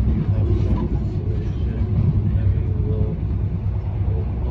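Passenger train running, heard from inside the carriage: a steady low rumble of wheels on track and running gear, with faint voices in the background.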